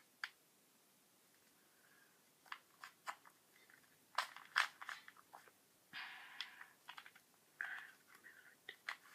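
Plastic Rubik's cube being twisted by hand: faint, irregular clicks and short scraping rasps as its layers turn, bunched in quick flurries with pauses between.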